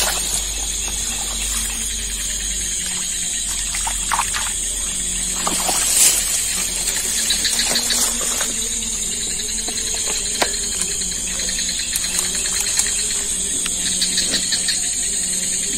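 Steady high-pitched chorus of night insects, with scattered faint clicks and a sharper knock about six seconds in.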